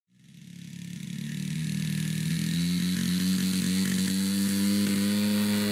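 The 61 cc two-stroke engine of a large radio-controlled P-51D Mustang model running steadily. It fades in over the first two seconds, and its pitch rises a little about two seconds in.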